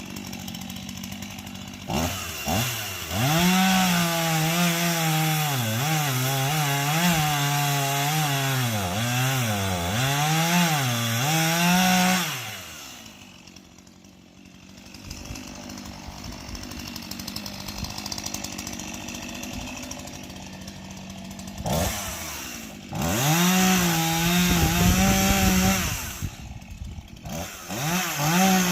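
Stihl two-stroke chainsaw cutting into a dead tree, its engine pitch repeatedly sagging and recovering as the chain bites the wood. It drops back to a lower, quieter run for several seconds in the middle, then revs up and cuts again twice near the end.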